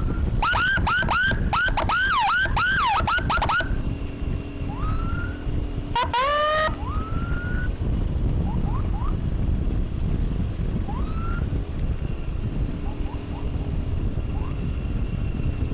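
Electronic emergency siren: a rapid rising-and-falling yelp, about three sweeps a second, for about three seconds, then one short rising whoop about six seconds in. Fainter short rising siren chirps come and go over a steady road and wind rumble.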